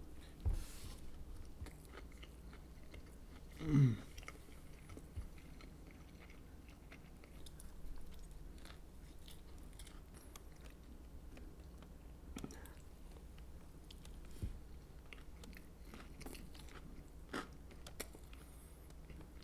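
Close-up chewing of a crispy fried chicken sandwich, with faint crunches and wet mouth sounds. About four seconds in, a short falling hum of appreciation.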